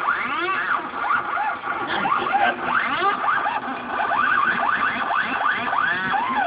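Stepper motors driving the belt-drive and ballscrew linear actuators of a homemade CNC drawing machine, whining as the axes move. Their pitch keeps sweeping up and down in overlapping arcs, about two a second, as the axes speed up and slow down.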